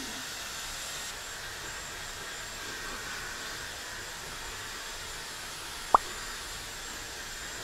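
Handheld hair dryer blowing steadily, with a single short, sharp click about six seconds in.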